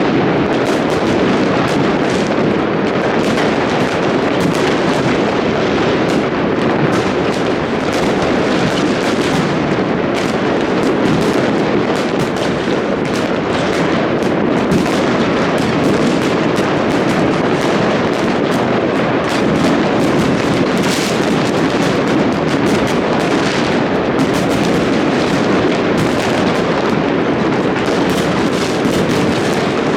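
New Year fireworks going off in a dense, continuous barrage: many overlapping bangs and crackles with no break.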